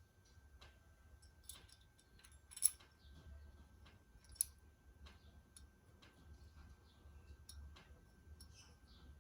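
Faint small metal clicks and ticks of universal-joint bearing-cap retainers and screws being handled and fitted, with two sharper clicks, one a little under three seconds in and one about four and a half seconds in.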